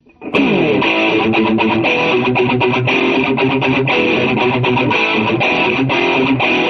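Guitar music with strummed chords in a steady rhythm, starting a moment in.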